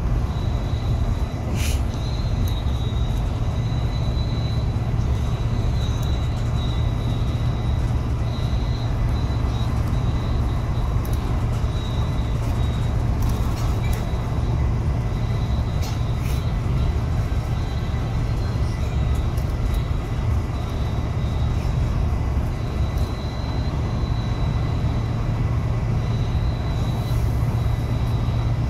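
Steady low road and engine rumble heard inside the cabin of a vehicle travelling at highway speed, with a few faint clicks and rattles.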